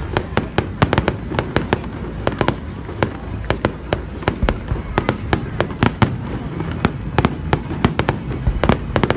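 Aerial fireworks shells bursting overhead: an irregular rapid series of sharp bangs, several a second, over a continuous low rumble.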